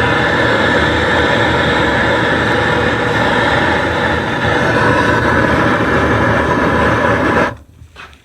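Loud, steady mechanical rushing noise with a faint steady whine in it, cutting off abruptly near the end.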